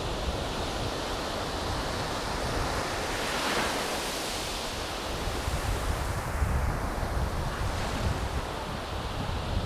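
Surf washing on a beach, with wind buffeting the microphone in low fluttering gusts. A wave swells and washes in about three to four seconds in.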